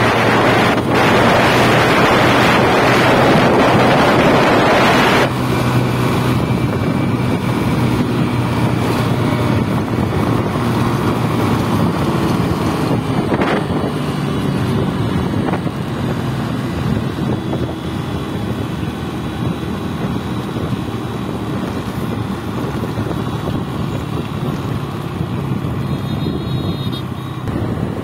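Wind rushing over the microphone on a moving scooter, with the steady hum of its small engine at cruising speed underneath. The wind is heavy for the first five seconds, then drops suddenly, leaving the engine hum plainer.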